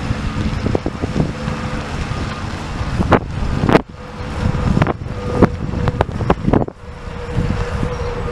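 Wind buffeting the microphone over a steady engine rumble, most likely the Ford F350's 6.7-litre turbo-diesel V8 idling, with a faint steady whine; several sharp knocks or gust hits come through in the middle.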